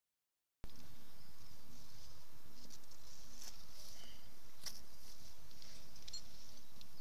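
Rustles and light scrapes of a climber and his gear moving over sandstone rock, over a steady outdoor hiss. The sound cuts in suddenly about half a second in.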